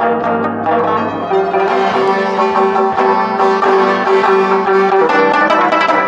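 Rubab, the Pashtun short-necked lute, being played: a steady stream of plucked notes with a bright repeated note standing out.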